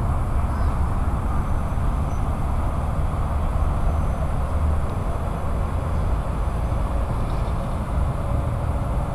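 Steady road-traffic rumble and tyre noise from a highway, an even low drone with no distinct events.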